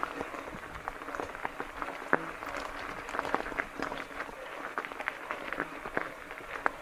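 E-mountain bike tyres rolling over a gravel forest track: a steady crunch full of irregular small clicks and crackles from loose stones and grit.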